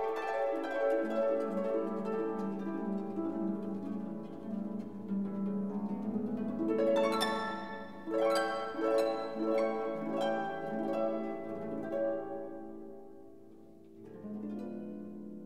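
Background music of plucked strings playing a light melody, growing sparser and quieter near the end.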